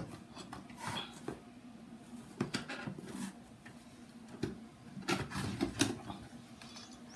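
Cardboard box being opened by hand: irregular scrapes, taps and rustles of the flaps and lid being pulled open.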